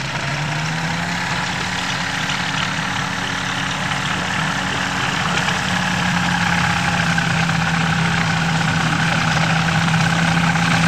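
Engine of a home-built ultralight airplane running steadily as it taxis, propeller turning. Its pitch steps up slightly about a second in, and the sound grows louder as the plane comes closer.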